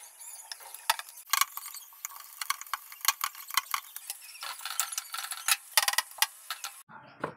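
Irregular light clicks and taps from hands working roti dough and handling a tawa, over a faint steady hiss. Near the end the sound shifts to a fuller, lower noise.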